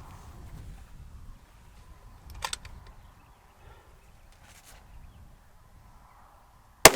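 A single loud rifle shot near the end, cracking out after a few seconds of quiet outdoor background broken by a couple of faint clicks.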